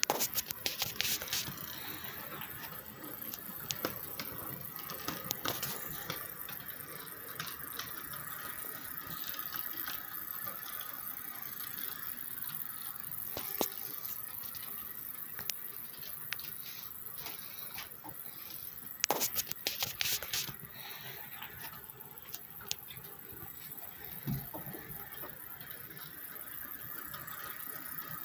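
Model diesel locomotive and freight cars running on the track: a steady high whine with irregular sharp clicks and rattles, a quick cluster of louder clicks about 19 seconds in.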